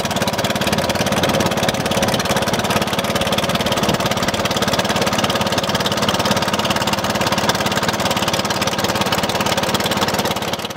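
Engine of a small river boat running steadily underway, with a fast, even beat.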